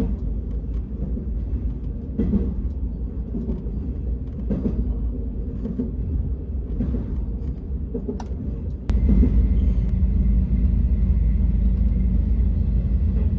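Train running: a steady low rumble with scattered short knocks. About nine seconds in it suddenly grows louder and a faint steady whine joins it.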